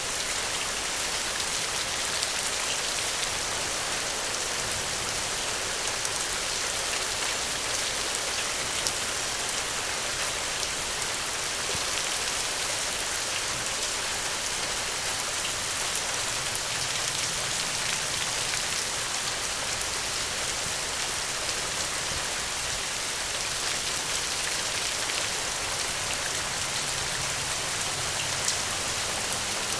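Steady gentle rain falling, an even hiss with scattered individual drop ticks.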